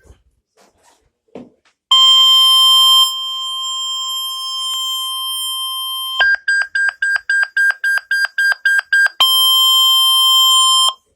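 Emergency alert broadcast tones: a loud steady electronic tone starting about two seconds in and carrying on more quietly for a few seconds, then a fast run of short beeps at about four a second, then a loud steady tone again that cuts off abruptly.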